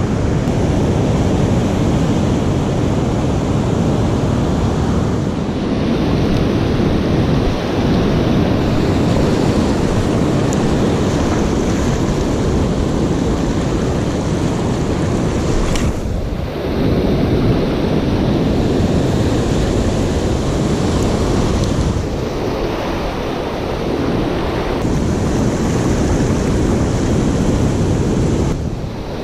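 Ocean surf breaking and washing over rocks, a steady rushing wash, with wind buffeting the microphone.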